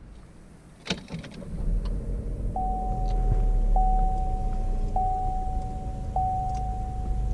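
Car starting up: a click about a second in, then the engine's low rumble comes in and runs steadily, while a dashboard warning chime sounds over it, repeating a single tone about every second.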